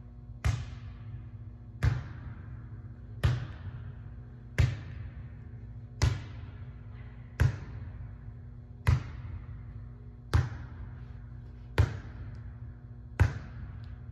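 Volleyball being passed up again and again off a player's arms, a sharp slap about every one and a half seconds, ten in all, each followed by a short echo. A steady low hum runs underneath.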